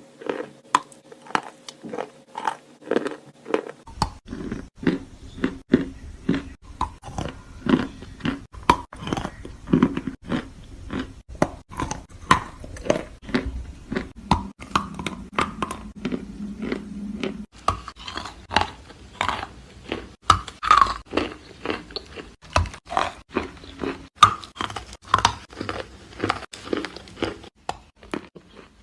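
Close-up chewing of wet chalk: a steady run of short, sharp crunches, about two a second.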